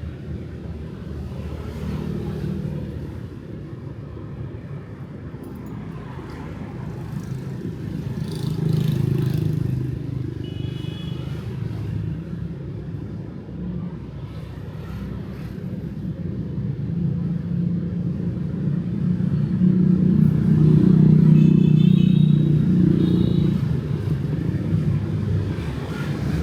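Night street traffic of cars and motorbikes: a continuous low rumble that swells as vehicles pass, about 9 seconds in and again from about 20 to 23 seconds. Short, high vehicle-horn beeps sound about 11 seconds in and twice around 22 seconds.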